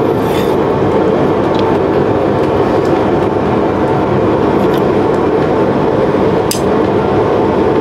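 A forge running with a steady, even rushing noise, with a few faint clinks of the tongs and blade.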